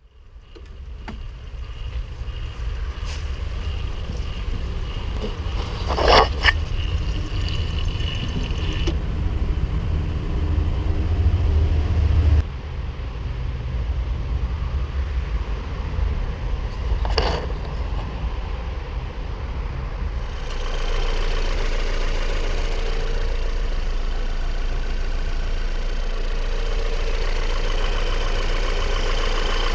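Opel Vectra C's Z22YH 2.2-litre petrol engine and its EGR valve, whose electric motor makes an unpleasant noise as it moves the valve, an early sign that the motor is failing. The sound changes abruptly about twelve seconds in, and from about twenty seconds in it settles into a steady, even run.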